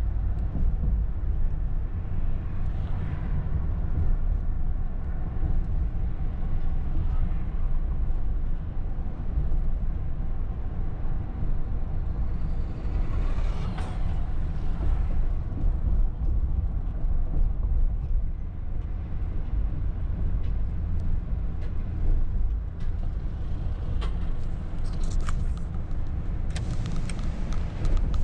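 Car driving along a city street, heard from inside the cabin: a steady low rumble of engine and tyre noise, swelling for a few seconds around the middle, with a few sharp clicks near the end.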